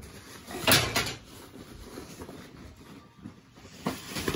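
Handling noises from a nylon rain cover on a tackle backpack being pulled and rustled, with short sharp swishes or knocks about a second in and again near the end.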